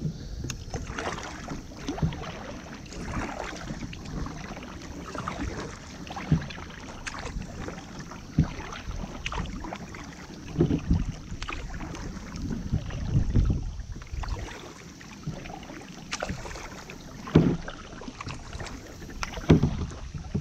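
Kayak paddle strokes: the blades dipping and splashing in calm water every second or two, with dripping between strokes and a few louder splashes near the end.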